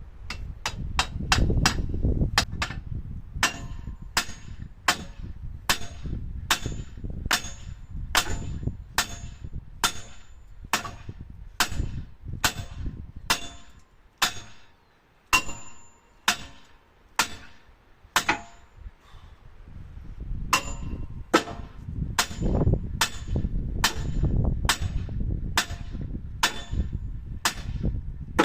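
Hammer striking steel again and again, about one blow a second, each with a ringing metallic clang: a steel excavator track pin being driven in. A low rumble runs underneath, fading in the middle and returning near the end.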